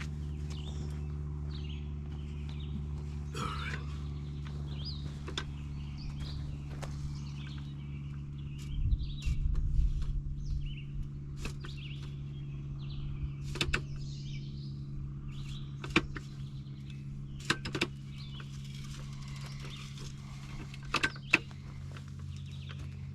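A steady low machine hum, with a louder rumble about nine seconds in, several sharp clicks and knocks, and faint bird chirps.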